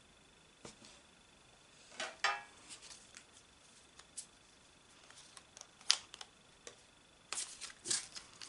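Pokémon trading cards handled at close range: short slides, flicks and taps of card stock against card stock, heard as a handful of separate rustles and clicks with a cluster near the end.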